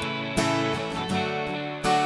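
Intro music of strummed guitar chords, with a new chord struck about half a second in and again near the end.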